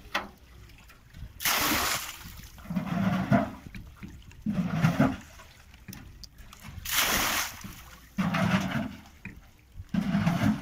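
Water being bailed by hand from the hold of a wooden boat with a plastic can: repeated deep gurgling as the can is filled in the bilge, and twice a rush of water as it is tipped out over the side with a splash.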